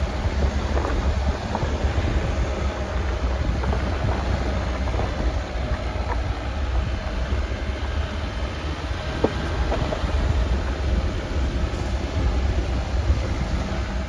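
Off-road vehicle driving slowly over a rough, stony dirt track: a steady low rumble of engine and tyres, with scattered small knocks and rattles from stones and the body.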